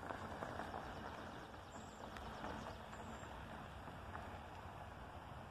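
Faint outdoor background hiss with two brief high bird chirps, about two and three seconds in.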